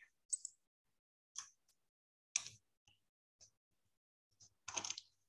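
Faint keystrokes on a computer keyboard: single clicks about once a second, then a quick run of several near the end.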